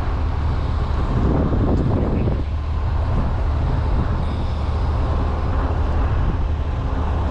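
Emergency vehicles' diesel engines idling: a steady low rumble with a constant hum.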